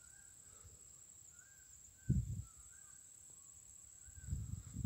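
Faint short chirping calls from a small night animal, repeated irregularly, over quiet bush ambience. A brief low thump about two seconds in, and a low rumble building near the end.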